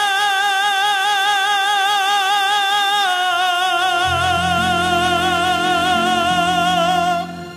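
Music: a singer holds one long note with wide vibrato, stepping down to a lower held note about three seconds in, as low orchestral accompaniment comes in beneath. The music fades out near the end.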